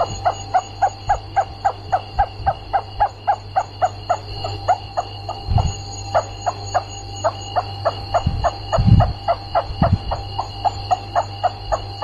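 Rats squeaking: a fast, very regular run of short high squeaks, about four a second, over a steady electrical hum, with a few dull low thumps.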